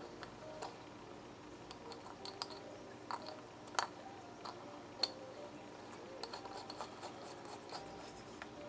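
Scattered light clicks and taps of small metal carburetor parts and hand tools being handled while a Force 9.9 hp outboard carburetor is put back together, with two sharper clicks a little over a second apart near the middle.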